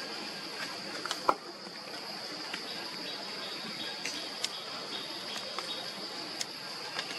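A high, steady insect drone over a wash of trickling and dripping water after rain, with scattered sharp ticks of drops and one louder knock about a second in.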